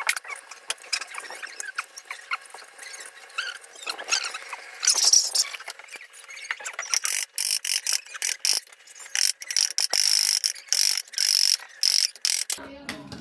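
Squeaking and scraping from a seized electric fan motor being worked on, with many sharp clicks. In the second half, a quick series of short, high squeals at one pitch, typical of a dry, stiff shaft turning in its bushing.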